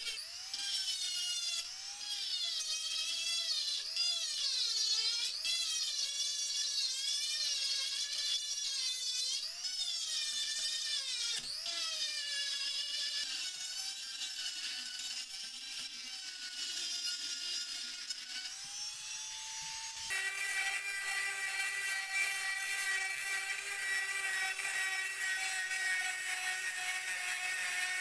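Handheld rotary tool with a mounted abrasive grinding point, whining at high speed as it grinds rust off a drop-forged steel pipe wrench. For about the first twenty seconds the pitch wavers up and down as the stone is pressed against the metal. After that the whine holds a steadier pitch.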